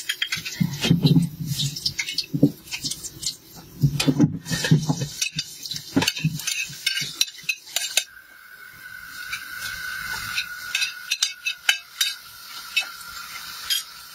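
A metal spoon clinks and scrapes against a metal bowl as food is stirred, in quick irregular taps. A faint steady high tone comes in about halfway through.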